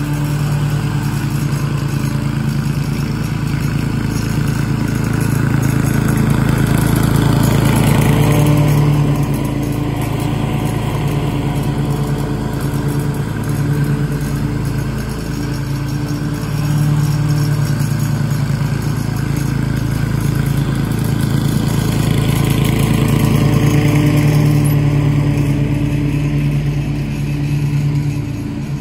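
Toro TimeMaster walk-behind mower's engine running steadily at constant speed while cutting grass. It grows louder and then fades twice as the mower moves nearer and farther.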